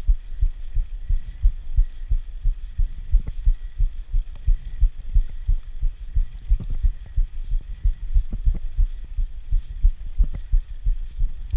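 Rapid, fairly even low thumping and rumble, about three to four thumps a second, picked up by a camera riding on a mountain bike climbing a concrete road, with a few sharper clicks mixed in.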